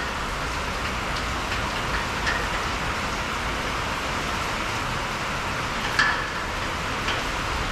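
Steady hiss of rain on the metal shop roof, with a few short metallic clinks from hands working bolts on the stainless steel spreader tray, the loudest about six seconds in.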